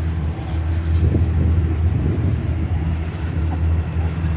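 Motorboat engine running steadily while under way, a low hum with the rush of wind and water over it.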